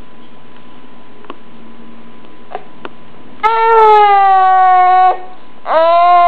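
A baby's voice in two long, loud, held calls starting about three and a half seconds in, the first sliding slightly down in pitch. Before them there are only a few faint ticks.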